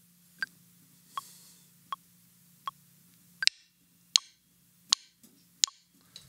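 Metronome clicking at 80 beats per minute, single wood-block-like ticks about three quarters of a second apart. From about halfway the clicks come louder and sharper, counting in before the drums.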